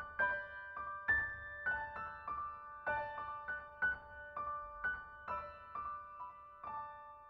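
Gentle solo piano background music, notes struck about twice a second and left to ring, fading away near the end.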